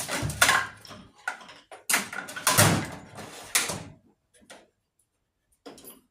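Hand tools being handled: a run of sharp clinks and knocks as drivers or sockets are picked through to fit a small metric screw head. The clatter stops about four seconds in, leaving only a few faint ticks.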